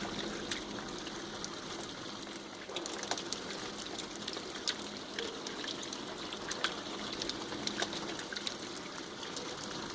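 Water from a hose spraying a closed window and pouring in through it, a steady trickle and splash with scattered drips. The leak is the sign of a window that does not seal.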